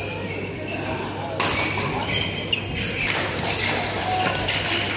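Badminton rally on an indoor court: several sharp racket strikes on the shuttlecock and short high squeaks of shoes on the court mat, over a steady murmur of voices in a large hall.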